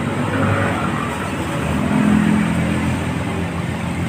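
Steady background noise of passing motor traffic, with a low engine hum swelling about two seconds in.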